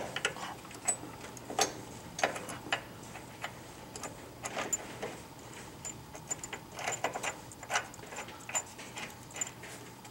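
Irregular light metallic clicks and taps of bolts, spacers and washers being fitted and handled while a bump stop is mounted, some coming in quick little clusters.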